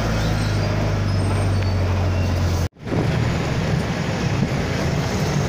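Vehicle engine running with road noise, heard from aboard the moving vehicle: a steady low hum that breaks off abruptly a little under three seconds in at an edit cut, then picks up again as a rougher, noisier drone.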